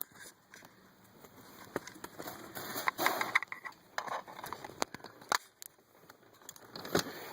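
Plastic wiring-harness connectors being handled and pushed together: scattered sharp clicks and taps with wire rustling, as a Compustar Drone module's 4-pin data plug is mated to an iDatalink T-harness.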